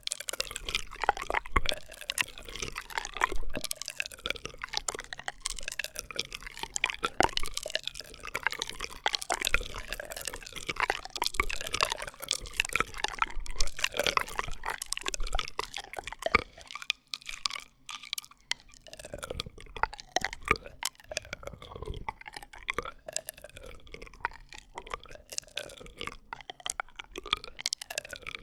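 ASMR straw sounds: a continuous run of small wet pops, clicks and bubbly squeaks from a drinking straw, with many quick little rises and falls in pitch.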